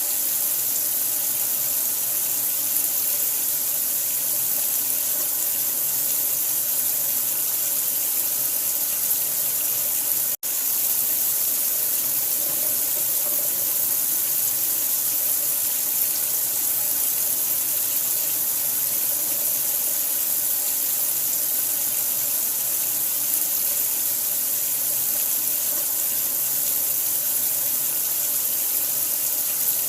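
Running water pouring steadily, an even hiss with a split-second break about ten seconds in.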